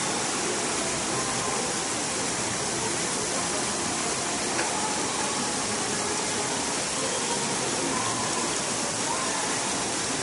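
Fountain jets splashing steadily, a continuous rush of falling water, with a crowd's voices faint underneath.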